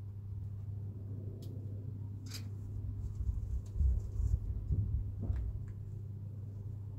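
Chickens moving about and pecking: a few sharp taps about one and a half, two and a half and five seconds in, and a run of low bumps in the middle, over a steady low hum.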